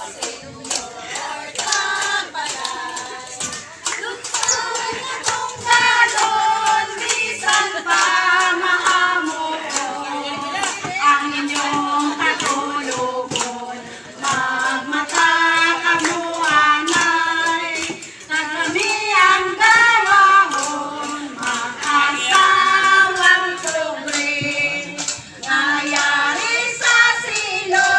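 A group of women singing together, clapping their hands in a steady beat.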